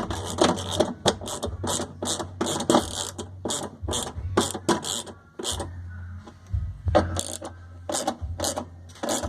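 Ratchet wrench clicking in quick strokes, about three clicks a second with a short pause midway, while bolts are worked during removal of a washing machine's transmission; a low steady hum runs underneath.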